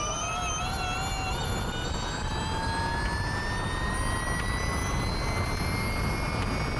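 Ducati V21L MotoE electric racing motorcycle accelerating at full throttle out of a corner onto a long straight. The high electric-drive whine climbs steadily in pitch as the speed builds, over a steady rush of wind noise on the onboard microphone.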